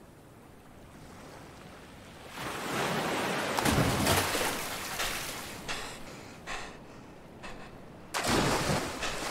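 Sea waves with heavy splashing in the water. A loud surge of splashing builds a couple of seconds in, a few short splashes follow, and another loud splash comes near the end.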